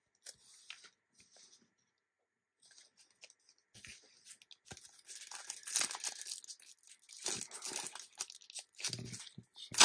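A trading-card pack's wrapper being torn open and crinkled by hand. It is faint and sparse at first, then busy and louder from about four seconds in.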